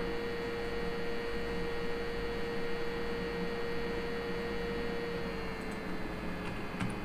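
Steady electrical hum with a pure tone, from the recording setup, dipping slightly in pitch about five seconds in; a couple of faint clicks near the end.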